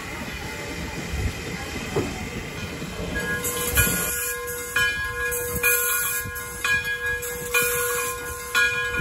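A steam locomotive hissing. About three seconds in, a locomotive bell starts ringing, struck roughly once a second at an uneven pace, as a steam engine approaches a grade crossing.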